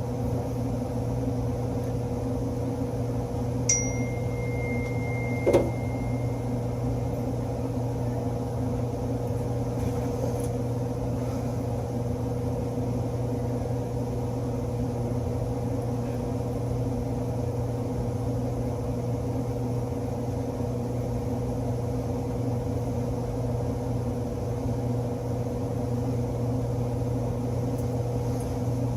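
Steady electrical hum of a running indoor HVAC unit. About four seconds in there is a small metallic click with a short ring, and a light knock follows a moment later, tools on the wiring.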